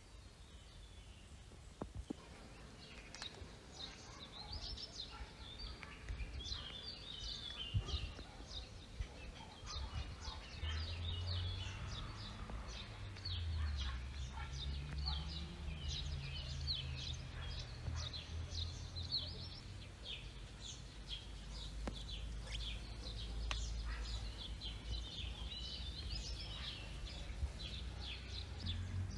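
Outdoor ambience with small birds chirping steadily. A low rumble joins about a third of the way in and carries on under the birdsong.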